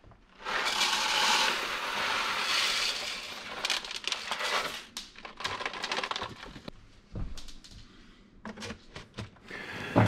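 Whole coffee beans poured from a foil bag into the bean hopper of a Spinn coffee maker: a dense rattling cascade for the first few seconds, thinning to scattered rattles and clicks as the pour tails off.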